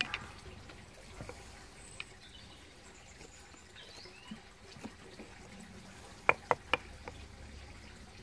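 A hand chisel scraping faintly as it pares out the bowl of a wooden spoon blank, with a few light clicks of wood and steel. About six seconds in come three sharp knocks in quick succession.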